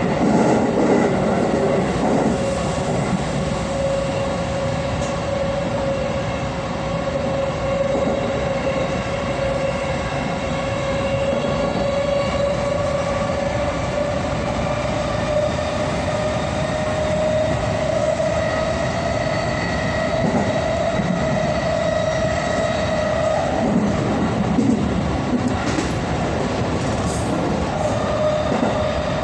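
JR West 223-series electric train running on the rails, with steady running noise and a motor whine that climbs slowly in pitch as the train gathers speed. The whine breaks off about three quarters of the way through, among a few low knocks, and then comes back.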